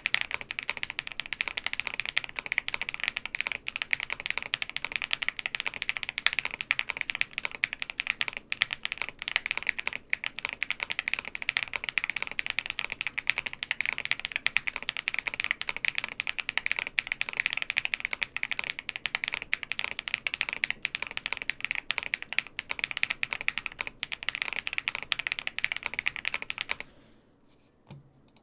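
Fast, continuous typing on a Meletrix Zoom75 mechanical keyboard with Wisteria tactile switches and all foams installed: dense keystroke clicks, brightest in the upper mids, that stop abruptly near the end, followed by one soft knock.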